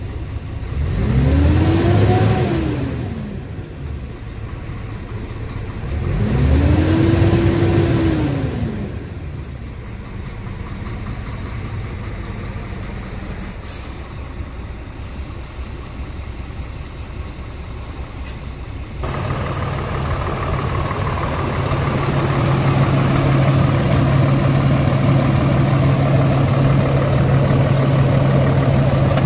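Scania R tractor unit's diesel engine revved twice from idle in neutral, each rev rising and falling over two to three seconds, then settling back to idle. About 19 seconds in, the sound changes abruptly to the engine idling louder and closer, with a steady low hum.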